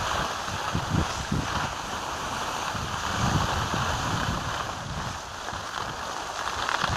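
Wind buffeting the microphone of a skier moving downhill, with the steady hiss of skis sliding over groomed snow.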